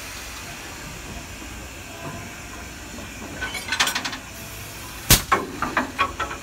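Steam locomotive hissing steadily as it vents steam. A cluster of sharp clicks comes about three and a half seconds in, then one loud sharp snap about five seconds in, followed by several smaller clicks.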